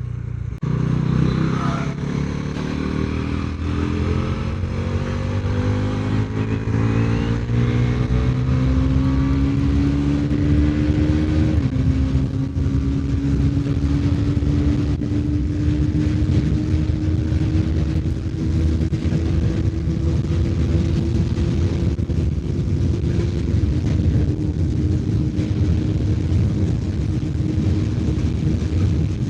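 Bajaj Pulsar NS400Z's single-cylinder engine pulling hard on the throttle at high speed. Its pitch climbs for about eleven seconds, drops suddenly at a gear change, then creeps up and holds near top speed, with a slight dip late on. Heavy wind rush runs underneath.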